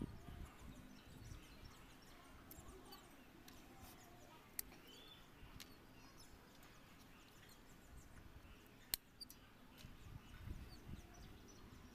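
Near silence: faint outdoor background with a few distant bird chirps and scattered sharp clicks, the loudest about nine seconds in.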